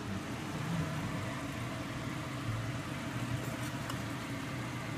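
A steady low mechanical hum, like a small motor or fan running, with a few faint clicks about three and a half seconds in.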